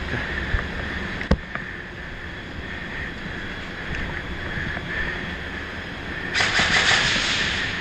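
A steady noise of movement on a body-worn camera's microphone, with a single sharp click a little over a second in. About a second and a half before the end, a loud dense burst begins and runs for about a second and a half, fitting rapid full-auto airsoft fire.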